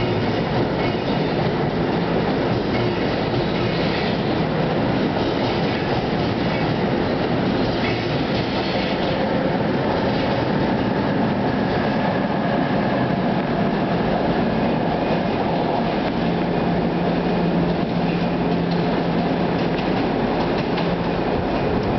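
NJ Transit multilevel commuter train, pushed by an ALP46 electric locomotive, rolling past on departure: a steady rumble of wheels on rail with clicking over rail joints. A steady low hum joins for a few seconds late on.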